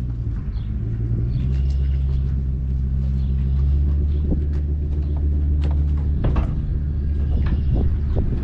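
Pickup truck towing a wooden flatbed wagon at low speed: a steady low engine-and-rolling rumble, with scattered knocks and rattles from the wagon.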